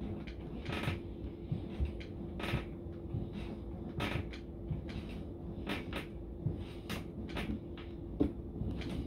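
Short, sharp breaths and light knocks of hands on a countertop during incline push-ups, coming irregularly about once or twice a second over a steady hum.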